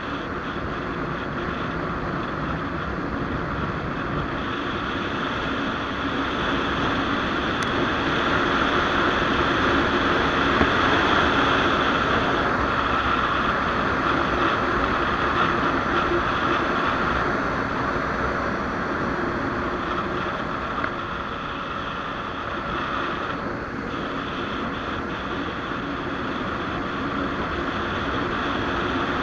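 Riding on a 1994 BMW F650: wind rushing over the microphone, with the bike's single-cylinder engine running steadily beneath it. The rush swells for several seconds around the middle and again near the end.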